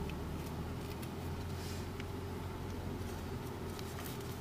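Car engine and road noise heard from inside the cabin of a moving car in slow traffic: a steady low hum with a few faint clicks.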